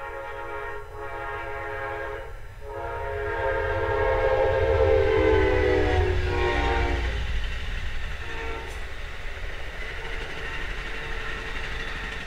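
Amtrak Empire Builder passenger locomotive's horn blowing a string of blasts as the train passes: two short breaks, then a long blast that drops in pitch as the locomotive goes by and cuts off about seven seconds in, followed by a brief toot. The low rumble of the passing train runs underneath.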